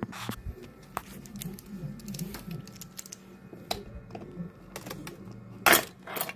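Scattered clicks and scrapes of a screwdriver prying at the plastic cover of a window contact sensor, with one louder sharp snap near the end.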